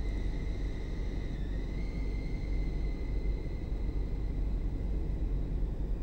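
Steady low background rumble with a faint, high, thin whine over it that steps up slightly in pitch about a second and a half in.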